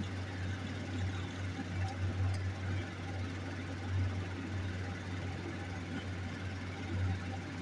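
Electric fan running with a steady low hum, with a couple of faint ticks from work at the bench.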